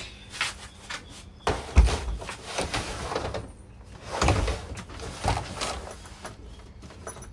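Hard-shell suitcase being loaded into an SUV's cargo area: a series of knocks and bumps, with two heavy thuds about two seconds in and again about four seconds in.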